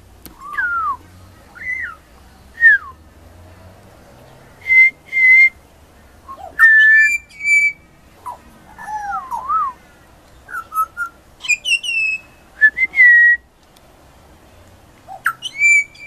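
Juvenile pied butcherbird singing: a series of clear whistled notes, many sliding down or rising and falling in pitch, given in short phrases with pauses between them.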